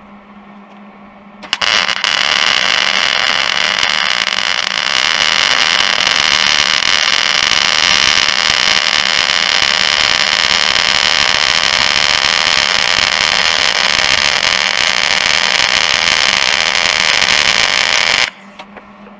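Stick welding arc struck about a second and a half in, then sizzling loudly and steadily as a steel wear rod is welded onto a snowmobile ski, cutting off suddenly near the end.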